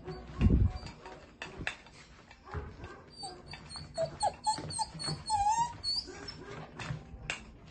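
German Shepherd mix puppy whining in play: a run of short, high cries that bend up and down, mostly between about three and six seconds in. A loud thump about half a second in and scattered light knocks.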